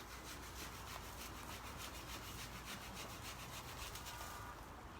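Rapid, even rasping or scraping, about seven strokes a second, which stops about four and a half seconds in.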